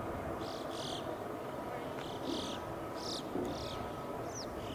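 Birds calling: short, harsh high calls, mostly in pairs about once a second, with a couple of quick curved whistled notes near the end, over a steady low rumble and hum.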